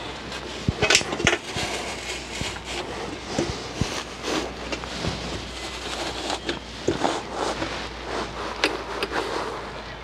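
Irregular knocks and clatter from handling the thin sheet-metal casing of a small electric water heater as it is fitted back over the heater, the loudest cluster about a second in.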